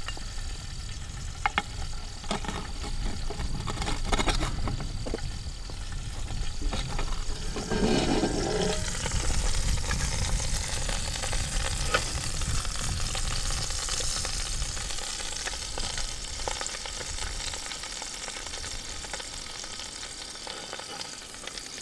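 Prime rib roast sizzling inside a cast-iron camp Dutch oven as the coal-covered lid is lifted with a metal lid lifter, with a few sharp metallic clinks from the lifter and lid.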